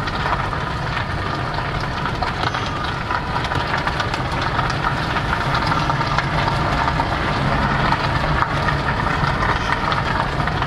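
Car engine running at low revs with steady road noise, heard from inside the cabin as the car rolls slowly down a concrete parking-garage ramp.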